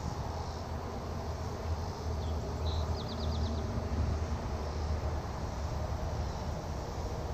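Steady low rumble of outdoor ambience, with a short run of quick high chirps or ticks about three seconds in.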